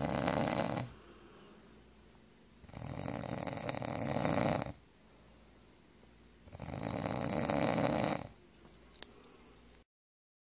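Snoring: three long, rasping snores about four seconds apart, each lasting about two seconds, the first ending about a second in.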